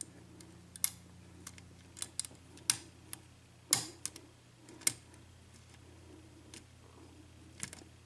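Lock pick and tension wrench working the pins of an Assa 6-pin oval cylinder lock held in a false set: irregular small metallic clicks and ticks, with the sharpest about a second in and around four and five seconds.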